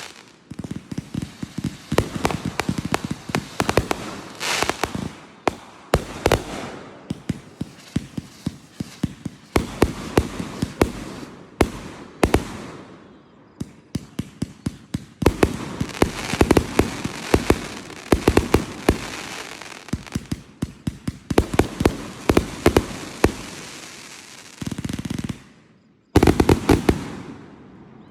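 Fireworks going off in rapid volleys of sharp crackling bangs, dozens of reports a second at the peaks, with brief lulls between volleys.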